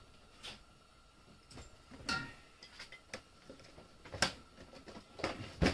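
Handling noises: scattered light clicks and clinks, growing more frequent and louder near the end.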